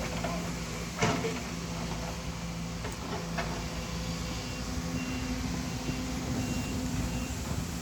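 Sumitomo SH210-6 excavator's diesel engine running steadily, with a sharp clank about a second in and the engine note rising about halfway through. Faint short high beeps repeat in the second half.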